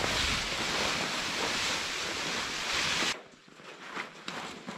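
Wind blowing on the microphone, a steady rushing noise that cuts off abruptly about three seconds in, followed by a few faint taps.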